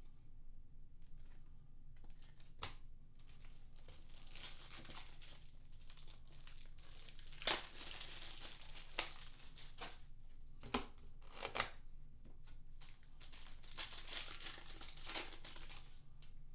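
Foil trading-card packs being torn open and crinkled in the hands, in two stretches of rustling, with a few sharp clicks and taps as cards and packaging are handled, the loudest about halfway through.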